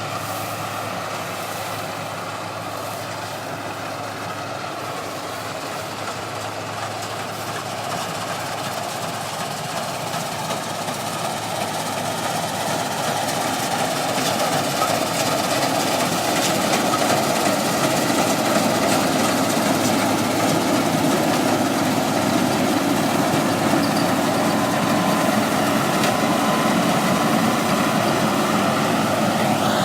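Combine harvester's diesel engine and machinery running steadily, growing louder about halfway through and then holding.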